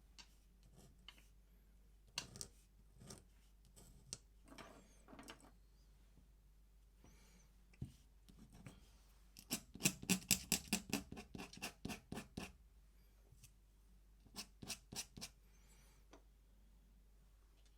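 Pen nib scratching on paper in short ink strokes: scattered single strokes, then a fast run of hatching strokes for about two and a half seconds in the middle, and a few more quick strokes later.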